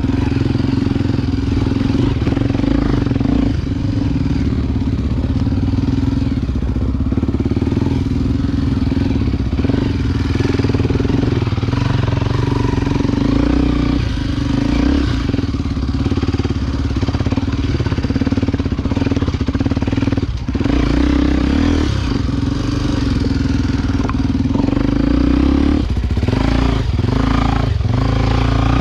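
Single-cylinder four-stroke engine of a Honda XR250 Tornado bored out to 293 cc, running steadily under load with brief throttle dips. A few sharp knocks near the end.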